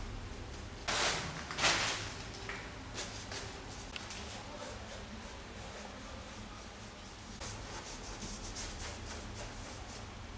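Paintbrush rubbing and scraping across a canvas in short strokes, with two louder swipes about a second in.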